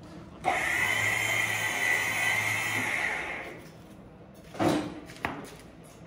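A small electric motor whirring steadily for about three seconds, then winding down, followed by a knock and a sharp click.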